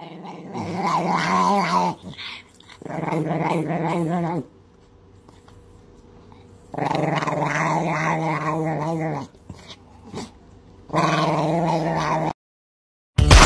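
Small dog growling in four drawn-out, wavering bouts of one to two seconds each, with short pauses between.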